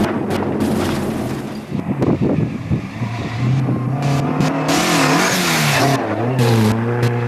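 Mk1 Ford Escort rally car driven hard on a dirt stage. First the engine and road noise is heard from inside the car. Then, from the roadside, the engine revs up and down through gear changes as the car comes past, with a spell of tyre hiss on the loose surface in the middle.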